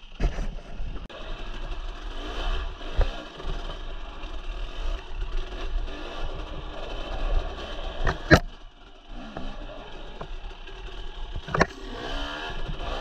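Dirt bike engine running and revving up and down while riding a rough desert singletrack, with several sharp knocks. The loudest knock comes about eight seconds in.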